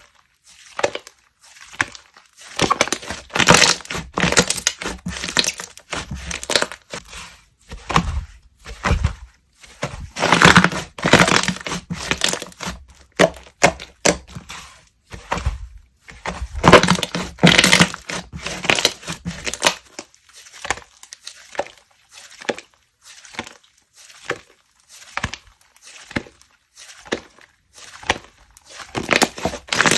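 No-borax slime being squeezed, poked and stretched by hand, giving dense runs of sticky crackling and popping clicks. The crackling comes in bursts, is somewhat quieter for a stretch in the last third, and picks up again near the end.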